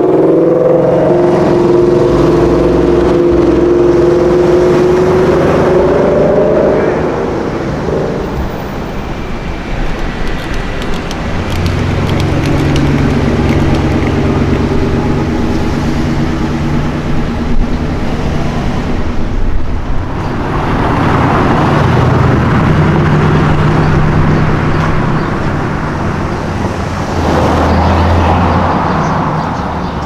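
A Ford Mustang Shelby GT500's supercharged V8 pulling away for the first several seconds, its engine note steady and slightly rising, then other cars' engines passing in city traffic, with two louder surges of engine noise in the last ten seconds.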